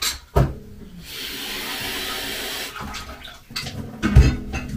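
Water running briefly from a kitchen tap, a steady hiss for under two seconds. A knock comes just before it and a louder thump near the end, as of kitchenware being handled.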